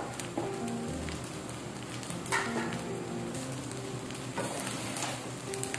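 Fried rice with freshly added egg sizzling in a frying pan as a spatula stirs it, with a few scrapes about two and a half and four and a half seconds in. Background music plays along with it.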